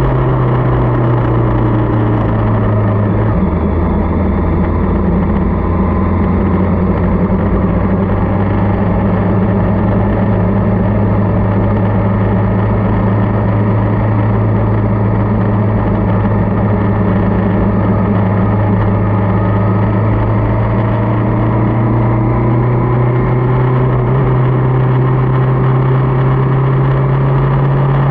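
Motorcycle engine running steadily while riding. Its pitch drops a little about three seconds in, holds, then climbs slowly over the last several seconds.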